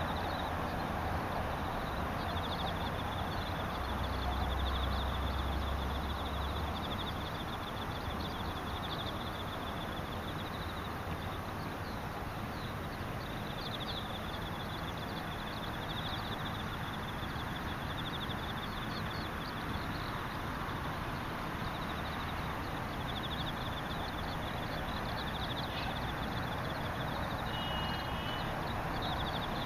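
Insects trilling in repeated high, rapidly pulsed bouts of a few seconds each over a steady outdoor background hiss, with a low rumble a few seconds in and a brief bird call near the end.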